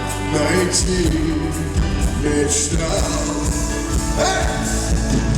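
Live pop ballad performed by a male singer with a band: a sung vocal line over the accompaniment.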